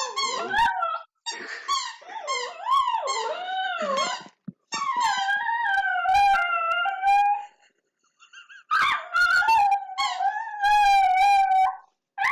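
Dog howling with a squeaky toy, in several long, wavering, high-pitched calls broken by short pauses, with the toy's squeaks mixed in.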